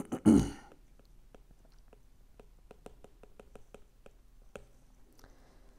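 Stylus tip tapping and clicking on a tablet's glass screen during handwriting: a run of light, irregular clicks, several a second, for about four seconds.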